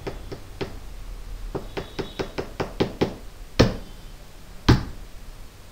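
A string of sharp knocks: three at the start, a quick even run of about eight at about five a second, then two louder single knocks about a second apart.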